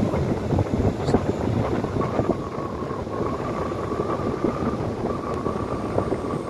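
A car driving on a wet, bumpy back road: steady road and tyre noise. A thin, steady high whine joins in about two seconds in.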